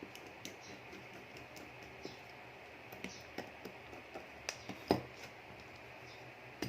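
Scattered small clicks and taps of plastic and metal as a mobile phone is taken apart with hand tools, with a sharper knock about five seconds in.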